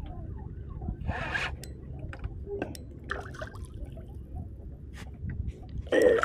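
Water lapping around a kayak under a steady low rumble, with scattered small clicks and knocks from a fishing rod and reel being handled while a hooked fish is played.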